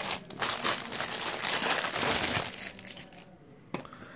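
Plastic packaging crinkling as it is handled for about two and a half seconds, then quieter, with a single light click near the end.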